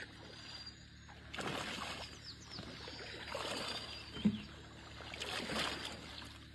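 Muddy water sloshing and splashing around a person wading thigh-deep in rubber waders, in three surges of a second or so each. A short low thump about four seconds in is the loudest sound.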